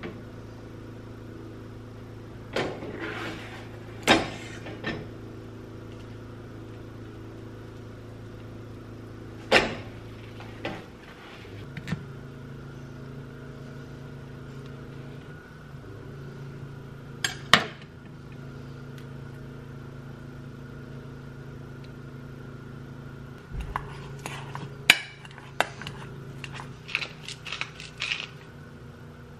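Kitchen cooking clatter: pans, utensils and a knife knocking and clinking on the stove and counter now and then, over a steady mechanical hum. Near the end comes a quick run of clicks from a hand spice grinder being twisted over a steel bowl.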